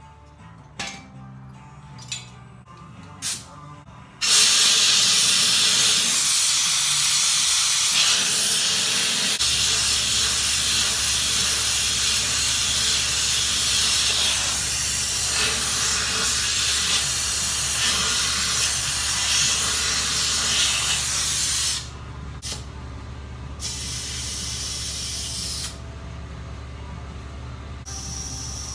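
Compressed air hissing loudly from an air hose into an ATV tire to seat its bead. One long blast starts about four seconds in and lasts some seventeen seconds, and two shorter bursts follow near the end. A few short clicks come before it, and a steady low hum joins about nine seconds in.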